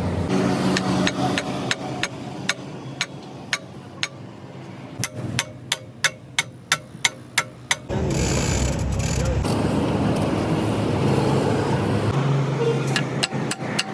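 Hammer blows on metal during repair of a stone crusher, sharp strikes at about two or three a second, with road traffic running underneath. A louder stretch of rushing noise cuts in about eight seconds in, and the hammering resumes near the end.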